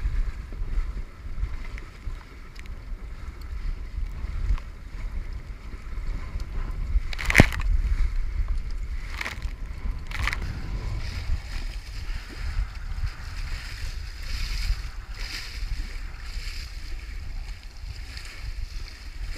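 Small sailing dinghy under way: wind buffeting the microphone with a steady low rumble, and water rushing along the hull, the hiss growing from about eleven seconds in. A few sharp knocks in the boat between seven and ten seconds in, the first the loudest.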